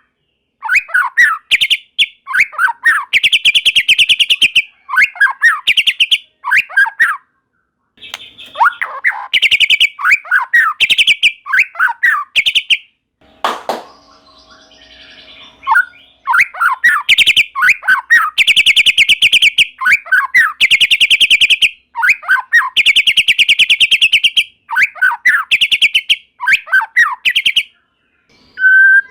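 White-rumped shama (murai batu) singing hard: fast, dense rattling trills alternating with short down-slurred whistles, phrase after phrase. Midway there is a pause of about two seconds, broken by a single click.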